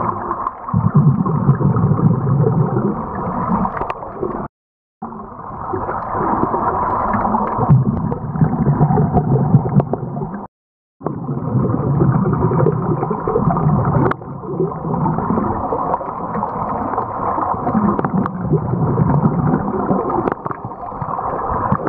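Muffled underwater sound of scuba divers breathing through their regulators, exhaled bubbles gurgling out in swells every four or five seconds. The sound cuts out completely twice for about half a second.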